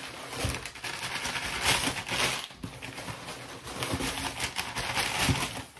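Packaging rustling and crinkling irregularly, with small knocks, as hands dig through a box of wax melts.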